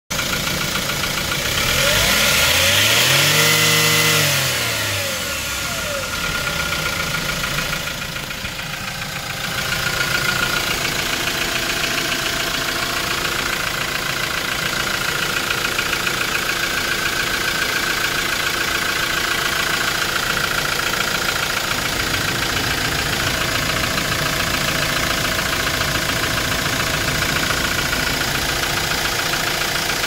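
Hyundai Porter truck's diesel engine revved once, its pitch rising and falling over about three seconds, then idling steadily.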